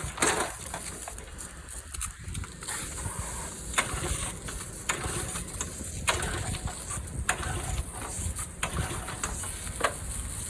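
Pressure washer's small gasoline engine being pull-started on choke, catching and running, its carburetor main jet freshly cleaned after years of sitting.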